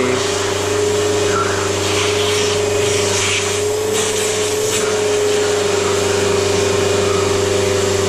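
Riccar 100 upright vacuum cleaner's motor running steadily, with a constant whine over a rushing of air.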